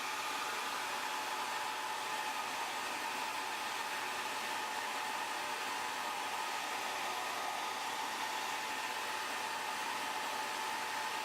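Hairdryer blowing steadily with a constant whooshing hiss and a faint steady whine, heating a phone's glass to soften its adhesive.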